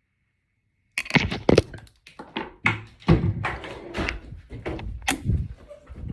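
A rapid run of irregular knocks and thuds that starts about a second in, after a moment of silence.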